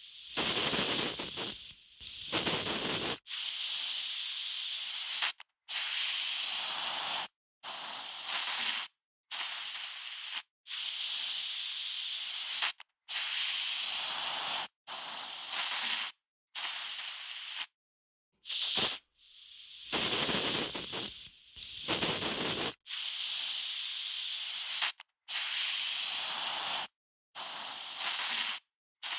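Aerosol spray can hissing in a long series of separate sprays, each about one to two seconds long, with short silent breaks between them.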